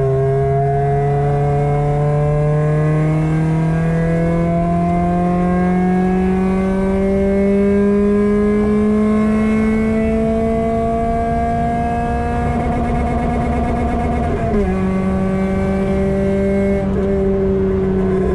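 Ford 1.7 Puma four-cylinder engine with a de-cat Milltek exhaust, heard from inside the cabin, accelerating in one gear with its pitch rising steadily for about fourteen seconds. An upshift then drops the pitch suddenly, and it keeps running hard in the next gear.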